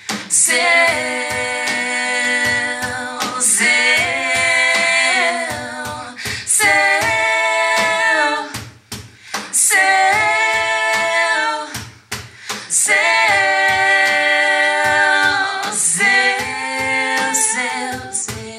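Women singing long held notes in phrases, close-miked, over a steady cajon beat.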